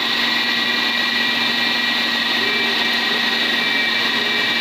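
Electric food processor grinding a thick shami kabab mixture of minced meat and chana dal, its motor running steadily with a constant hum and a high whine.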